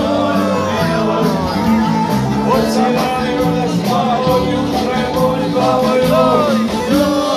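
Live band playing Bosnian folk music with a steady drum beat and a melody line, loud and unbroken.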